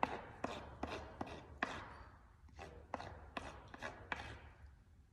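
A bar of tacky hockey wax rubbed in short, quick strokes across the cloth-taped backhand side of a hockey stick blade, about two scratchy strokes a second, tailing off near the end.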